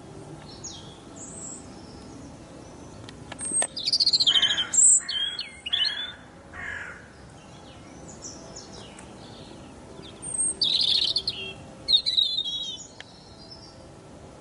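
European robin singing: two phrases of high, quickly changing warbling and trilled notes, one starting about three and a half seconds in and another about ten and a half seconds in, with a pause between.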